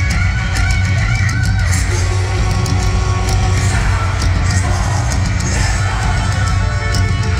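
Hard rock band playing live and loud: distorted electric guitar, bass and drums, with a male singer's vocal line over them. The low end is heavy and steady throughout.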